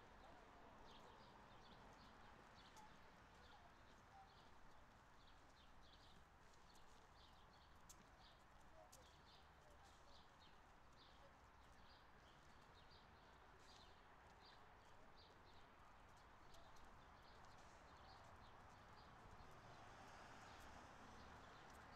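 Faint footsteps of a person walking at a steady pace, about two steps a second, over a quiet background hum of open air.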